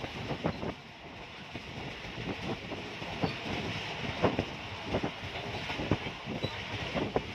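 Passenger train coach running along the line, its wheels clacking and knocking irregularly over the rail under a steady rushing noise, heard from an open coach window.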